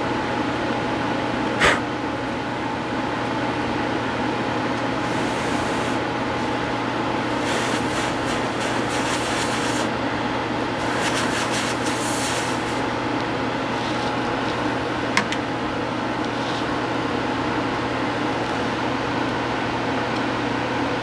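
Steady mechanical hum with a few faint steady tones running underneath, broken by a sharp click about two seconds in and another near fifteen seconds. Between about five and thirteen seconds come several short patches of scratchy rubbing.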